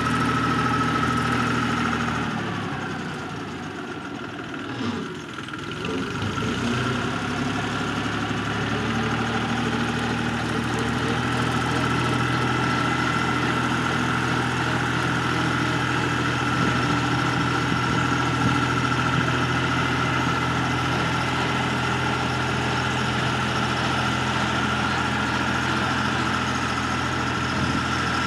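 Compact diesel tractor running steadily at working speed while pulling a rotary cutter through weeds. The sound drops in loudness and pitch a few seconds in, then comes back up and holds steady.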